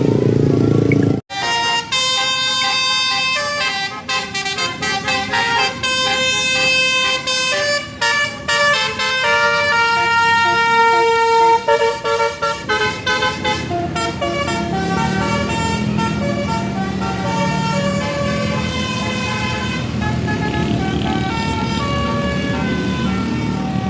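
Tour bus's 'telolet basuri' musical air horn playing a fast melody of stepped notes, starting sharply about a second in. Past the middle the horn notes grow fainter and the bus engine's low running comes forward.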